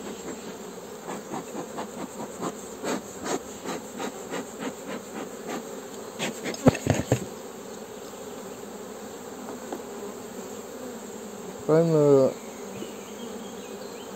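Honeybees buzzing steadily in an open hive, with a run of quick puffs from a bellows smoker over the frames in the first few seconds, about two or three a second. A cluster of sharp knocks comes about seven seconds in, and a brief, louder hum near the end.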